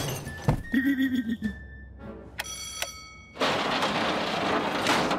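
Cartoon sound effects with music. About half a second in there is a knock, then a short low tone and a short high tone. Near the end comes a loud hiss lasting about two seconds.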